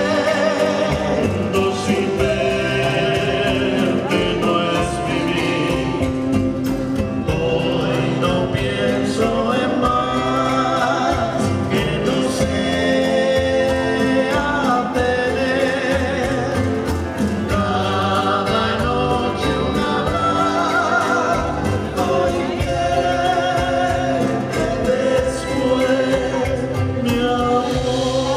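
Live acoustic band music: acoustic guitars and an upright double bass playing under singing voices.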